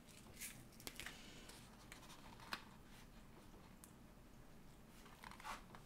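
Near silence broken by a few faint clicks and rustles as a small clear plastic storage container and a paper sheet of sticker labels are handled. The clearest click comes about halfway through.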